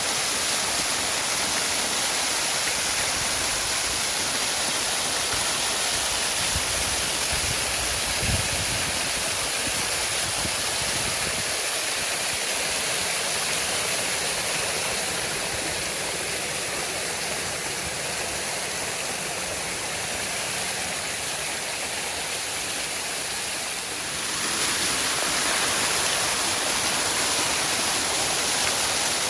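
Waterfall: a steady, dense rush of falling water, with a few low thumps a little after halfway through the first half and a slight rise in level near the end.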